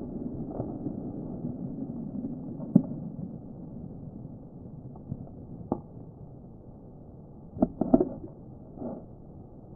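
The fading tail of a flash powder explosion, a low rumble dying away over the first few seconds. Then scattered sharp ticks and taps follow, with a quick cluster of them about eight seconds in.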